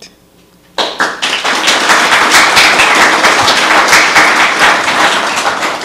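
Audience applauding, starting suddenly about a second in and easing off near the end.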